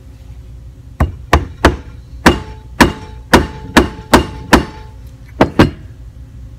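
Soft-faced mallet striking the top of a stainless steel hookah stem, driving it down onto the threads of a drilled stem piece clamped in a bench vise: about eleven sharp blows in quick, uneven succession starting about a second in, each with a short ring.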